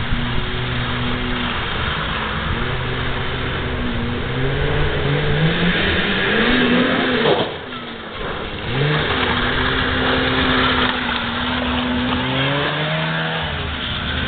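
Snowmobile engine revving up and down as the sled rides across snow. About halfway through, the engine note drops away for about a second, around the jump, then it revs up again.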